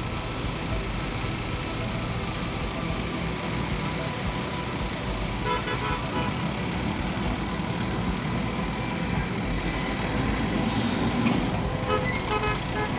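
JCB backhoe loader's diesel engine running steadily, with brief tonal sounds around the middle and near the end.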